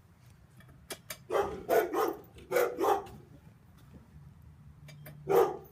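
Dogs barking: four short barks in quick succession from about a second in, then a single bark near the end.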